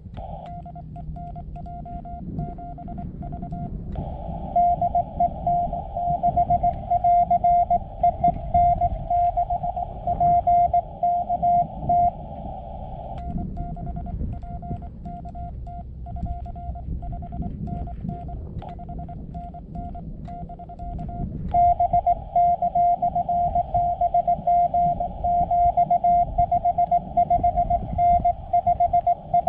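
Morse code (CW) keyed tones of one steady pitch from a portable ham radio transceiver, in a narrow band of receiver hiss. A fainter keyed signal alternates with two stretches of a louder keyed tone, one starting about four seconds in and one after about twenty seconds.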